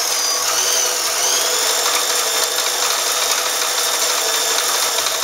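Sears Kenmore sewing machine running at speed, sewing a reverse-cycle stretch stitch that feeds the fabric forward and back. Its motor gives a high whine that wavers in pitch, then settles steady about a second in.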